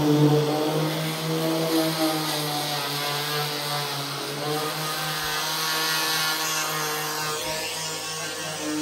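A machine running steadily: a constant hum with a hiss above it.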